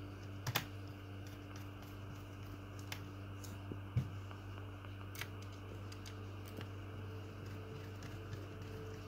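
Scattered light clicks and ticks of a small screwdriver working the screws of a laptop's bottom cover as they are driven back in, over a steady low hum.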